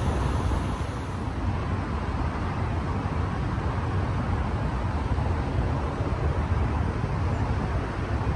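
Wind rumbling on the microphone of a moving bike, mixed with the steady noise of freeway traffic.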